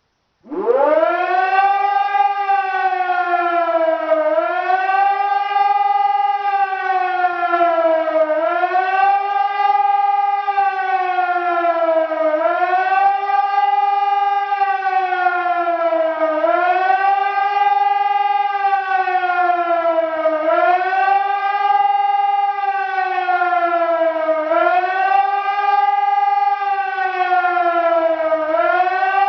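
EPS2400 electronic siren sounding the German 'Warnung' signal during a siren test: one loud, steady wailing tone. It sweeps up from low about half a second in, then rises and falls in pitch about every four seconds.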